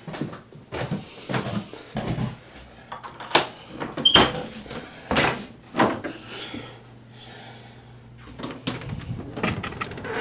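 A run of irregular knocks and clunks, about ten in all, with a quieter stretch in the second half, over a faint steady low hum.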